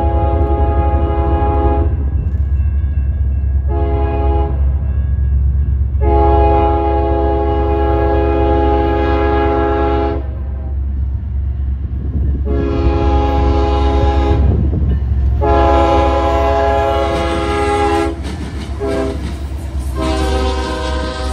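A freight locomotive's multi-note air horn sounds about seven blasts for a grade crossing, mostly long with two short ones, over the steady low rumble of diesel locomotives. Near the end the lead units pass close by.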